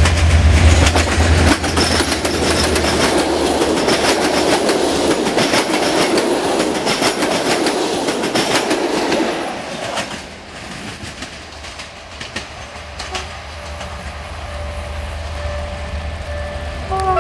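Diesel-electric locomotive hauling passenger coaches passes close at speed: a low engine drone at the start, then the coaches' wheels clatter rapidly over the rail joints for about ten seconds. The clatter drops off sharply, leaving a quieter rumble of a train moving away.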